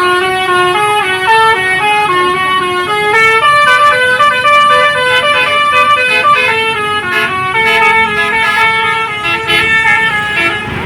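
Bus 'telolet' melody horn of the Basuri type playing a tune: a long, loud run of quick stepped horn notes, several pitches sounding together, with the notes changing about every quarter second.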